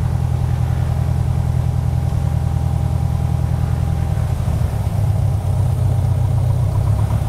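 Four-cylinder Lycoming IO-360 engine of a Piper Arrow II idling on the ground, a steady pulsing drone. About four seconds in its note shifts and turns rougher.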